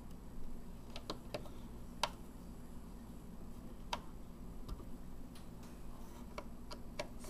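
Scattered small clicks and taps as screws and a circuit board are handled and fitted inside a hard plastic Otterbox case, over a faint steady low hum.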